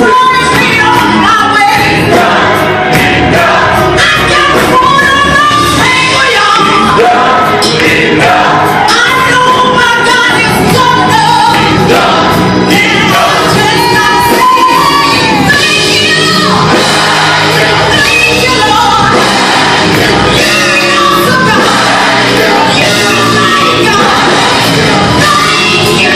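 A congregation singing a hymn with instrumental accompaniment, loud and continuous.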